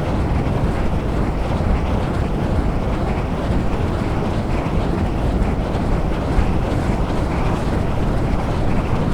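Wind blowing: a steady, deep rushing noise with little change in level.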